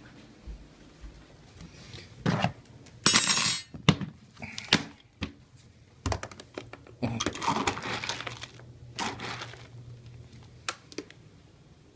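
Dry dog kibble rattling and clattering in a plastic storage bin as it is handled and scooped, with knocks of hard plastic and two longer rattles, about three seconds in and around seven seconds.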